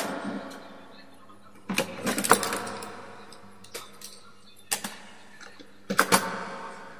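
Plastic clicks and clatter from handling wall switch and socket units on a wiring board, with a few sharp knocks, loudest about two seconds in and again around six seconds in.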